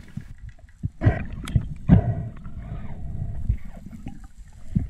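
Muffled underwater noise picked up by a camera in its housing: a low rumble of moving water with several irregular dull knocks and thuds.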